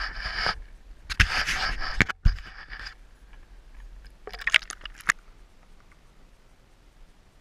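Scraping, knocking and splashing as a camera is lowered over a boat's side into a lake, in three bursts over the first five seconds. After that there is a low, muffled hush once the camera is underwater.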